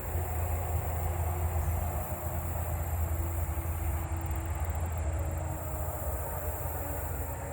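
Low, steady rumble of a vehicle engine, with meadow katydids calling faintly above it in a thin, high buzz that breaks into rapid ticks about four seconds in.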